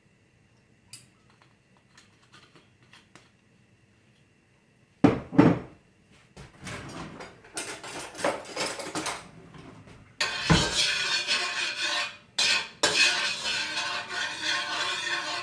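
Metal cookware and utensils clattering: faint clicks at first, two sharp knocks about five seconds in, then a continuous clatter that gets louder over the last five seconds.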